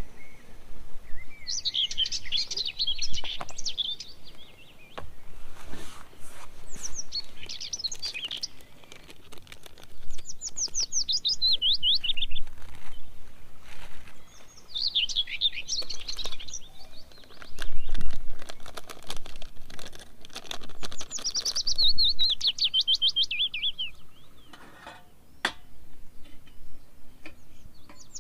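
A songbird singing the same fast, high trilled phrase about five times, a few seconds apart; each phrase is a quick run of sweeping notes lasting two to three seconds. A few soft clicks and knocks fall in between.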